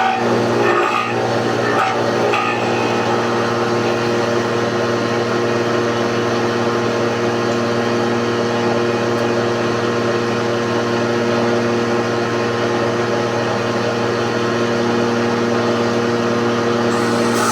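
Electric planer's motor running steadily with a constant, even hum, not cutting.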